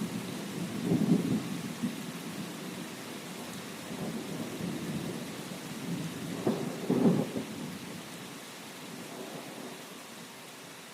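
Steady rain hissing with low rumbles of thunder: one about a second in and a stronger roll around six to seven seconds. The sound dies down toward the end.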